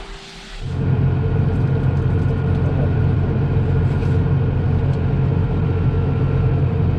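Combine harvester running, a steady heavy engine drone with a steady whine above it, starting abruptly about a second in.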